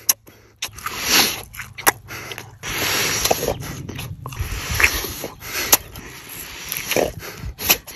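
Close-up sounds of someone biting and chewing a large piece of glazed barbecued meat: wet mouth noises and breaths, with a few sharp clicks and smacks.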